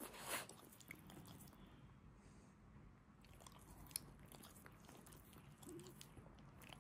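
Faint wet mouth noises of a French bulldog smacking its lips and licking its chops: a string of small clicks, with one sharper click about four seconds in.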